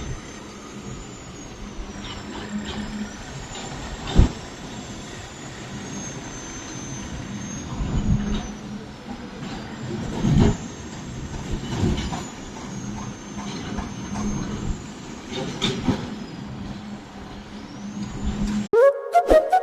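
Construction-site machinery running steadily with a low hum, broken by a few loud single knocks and bangs. Just before the end the site sound cuts off and music starts.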